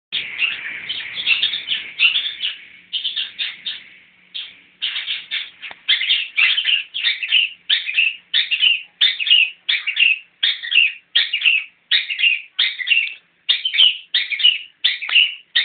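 Long-tailed shrike calling: a dense run of short, loud calls, a brief lull, then an even series of repeated calls about two a second.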